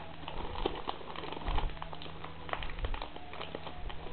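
Thin clear plastic bag crinkling and rustling in the hands as black in-ear earphones are packed back into it, a run of small irregular clicks with a louder handling noise about one and a half seconds in. A low steady hum runs underneath.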